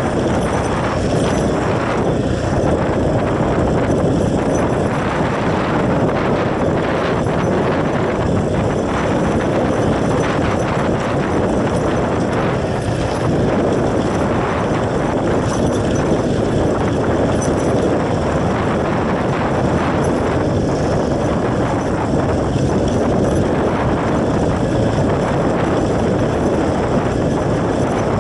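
Motorcycle being ridden: steady, loud engine and wind noise with a continuous rapid rattling clatter.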